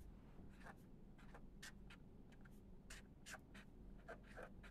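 Faint scratching of writing on paper, a quick run of short, irregular strokes as a line is written out.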